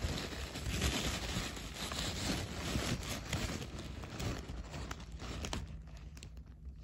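Packaging crinkling and rustling as a shipping package is opened and unpacked by hand, with scattered small clicks and knocks; it dies down about five and a half seconds in.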